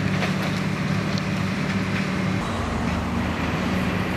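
Diesel engine of a demolition excavator running steadily under load, with a slight change in engine pitch a little past halfway.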